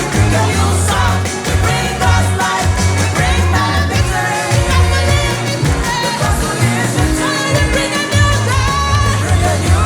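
A song with a sung vocal line over a strong, pulsing bass beat.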